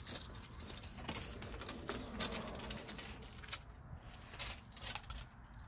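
Faint scattered clicks and rustles of archery gear being handled as an arrow is set on a horse bow's string.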